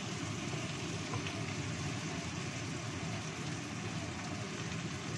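Sliced shallots, garlic and green tomatoes sizzling steadily in oil in a wok, over the low, even rumble of a gas burner.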